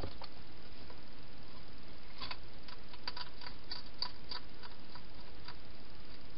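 Wild hedgehog eating from a bowl inside a plastic feeding box: a run of quick, irregular crunching clicks from about two seconds in, over steady hiss.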